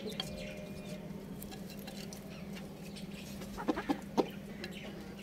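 Chickens clucking while pecking at scattered feed, with light pecking clicks throughout and two short, louder clucks about three and a half and four seconds in.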